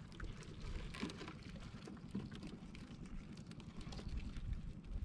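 Wind buffeting the microphone over water sloshing around a small fishing boat on a rough sea, a steady low rumble with faint scattered knocks.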